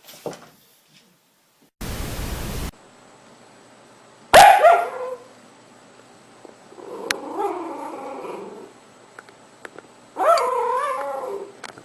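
A sleeping dog vocalising in its sleep: a sudden sharp yelp, then a muffled drawn-out whine, then a wavering howl-like call near the end. A short burst of hiss comes about two seconds in.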